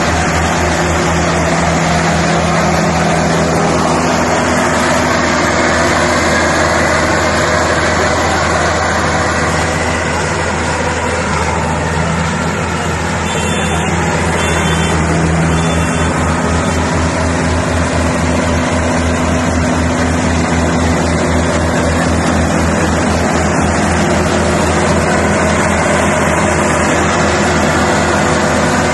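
Small tracked rice combine harvester working in a paddy field: its diesel engine and threshing machinery run steadily under load as it cuts and threshes the crop, with a slight dip in level around eleven seconds in.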